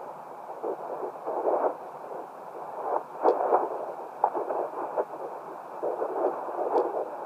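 Handheld fetal Doppler through its small speaker: a whooshing hiss with uneven pulses as the probe searches for the fetal heartbeats.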